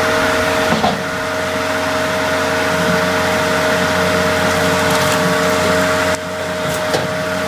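Shinyoung 1620SS firewood processor running, its hydraulic power unit giving a steady whine over a mechanical hum, with a few brief knocks about a second in and near the end.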